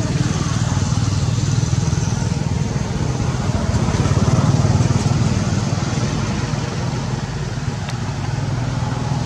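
A steady low rumble that swells a little about four seconds in and eases off again near the end.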